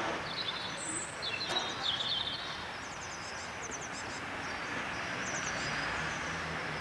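Small birds chirping in quick, repeated high notes over steady outdoor background noise.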